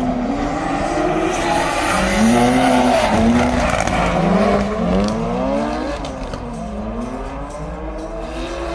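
Drift car's engine revving up and down about once a second as it slides sideways, with tyres squealing.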